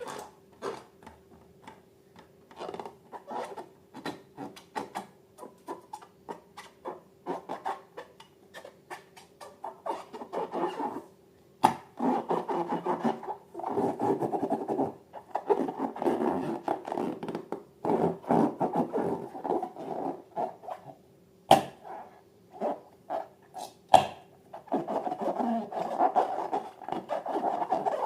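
Slime being worked and mixed: a run of quick sticky clicks and squelches, thickening into longer stretches of wet rubbing and scraping, with a faint steady hum underneath.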